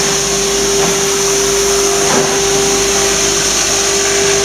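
Electric foam shredder running at steady speed: a constant whirring drone with a held hum and a high hiss.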